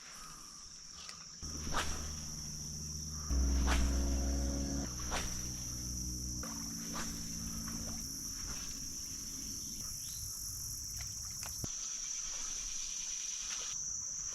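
Insects, crickets among them, shrill in a steady high chorus throughout. A low rumble rises about a second and a half in and is loudest around three to five seconds, then eases. Scattered sharp clicks and knocks come and go.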